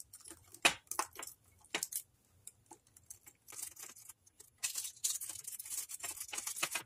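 Small packed items and plastic baggies being pushed into a glass jar by hand: scattered light clicks and taps against the glass, then a couple of seconds of steady plastic crinkling near the end.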